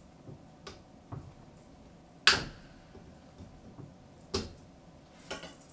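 About five sharp snaps and clicks, the loudest a little past two seconds in, as the fastenings holding a tree to a car's roof rack are cut loose.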